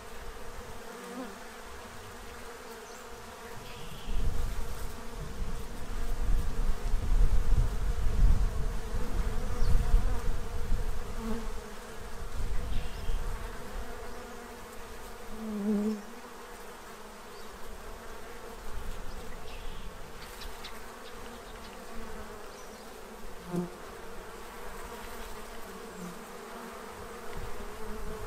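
Many honey bees buzzing steadily as they crowd a feeding tray. A low rumble swells from about four seconds in and fades by about thirteen seconds.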